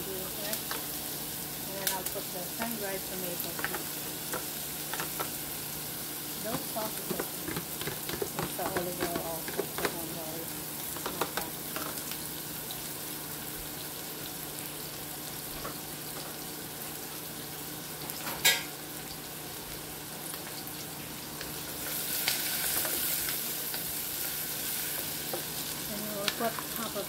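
Diced onions sizzling as they sauté in a pan, with a wooden spatula scraping and tapping against the pan as they are stirred. A single sharp clack about two-thirds of the way through, and the sizzle grows louder for a couple of seconds soon after.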